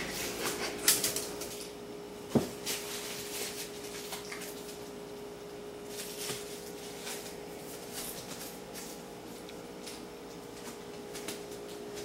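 Scattered light clicks and knocks of a cat batting a small toy ball around on a wooden floor and under a dishwasher, with one louder knock about two seconds in. A steady hum runs underneath.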